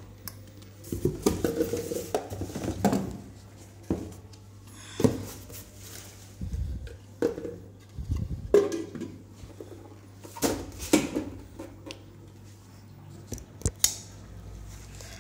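Stainless steel mixer grinder jars and plastic lids being handled and set down on a table, with irregular clinks and knocks, and cardboard packaging rustling.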